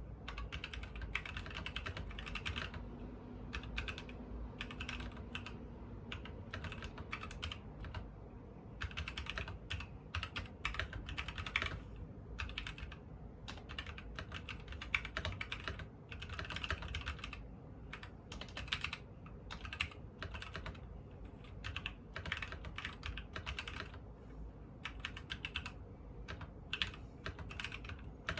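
Continuous typing on a custom mechanical keyboard with SP-Star x Kon MOMO switches on an aluminium plate in a KBD low-profile case: quick runs of key clacks in bursts with short pauses between them.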